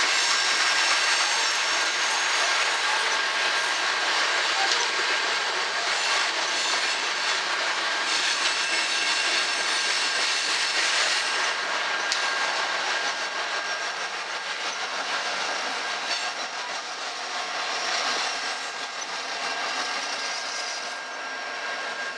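Coal hopper cars of a freight train rolling past, the steady rumble and clatter of steel wheels on rail with a thin, steady high-pitched ring over it. The sound fades in the last several seconds as the end of the train passes.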